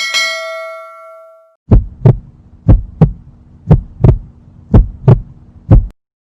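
A single ding that rings out and fades over about a second and a half, then a heartbeat sound effect: about five lub-dub double thumps, roughly one a second, over a low steady hum.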